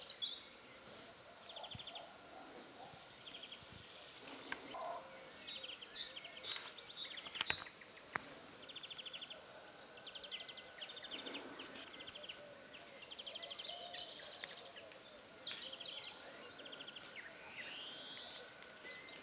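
Faint birdsong from several small birds: short, rapid trills repeated every second or so among scattered chirps, with a few sharp clicks around the middle.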